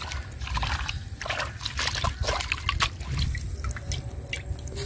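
Hands washing a bunch of coriander leaves in a terracotta bowl of water: irregular sloshing and splashing, with drips.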